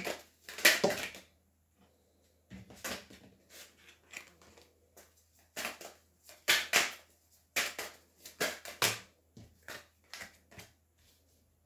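Tarot cards being drawn from the deck and laid down one at a time on a table, a series of sharp, irregularly spaced flicks and slaps.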